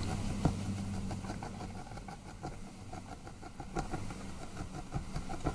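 A pointed tool jabbing repeatedly into a needle-felted wool body, tucking the wool up around the wire legs: quick, faint ticks several times a second, over a low steady hum.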